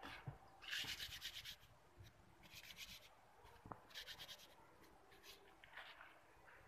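Cucumber leaves rubbed briskly between bare palms, faint, in three short spells of quick scrubbing strokes, the leaves being scrubbed before cooking.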